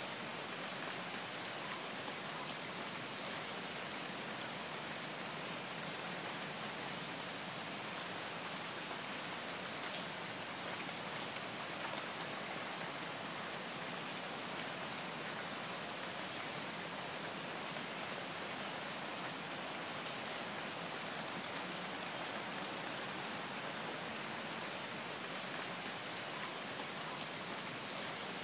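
A steady, even hiss with no rhythm or breaks.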